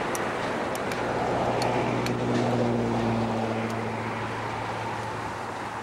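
Twin-engine jet airliner's engines at takeoff power as it begins its takeoff roll: a steady heavy rush of jet noise with a low hum, swelling in the middle and easing slightly towards the end as the plane moves away.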